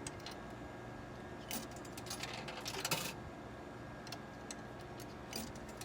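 Coins dropping through the coin mechanism of an old Coca-Cola bottle vending machine: scattered short metallic clicks and rattles, busiest about three seconds in.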